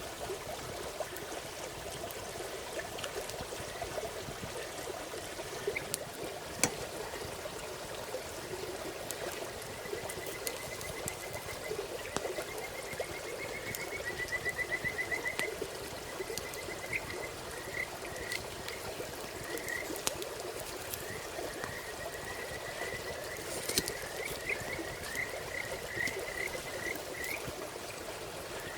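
Frogs calling in trills of rapid high notes, which start about a third of the way in and come more often toward the end. Under them runs a steady burble of running water, and a few sharp pops are heard near the start.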